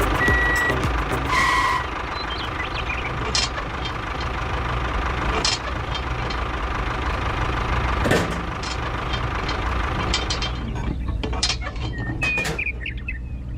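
A machine's motor running steadily with a low hum, with scattered clicks and knocks over it. Two short high beeps come in the first second, and a single sharper knock about eight seconds in.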